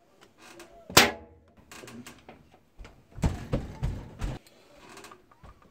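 A sharp plastic click about a second in, then a cluster of knocks and thumps as a clamp mount is fastened to the lid and control panel of a top-loading washing machine.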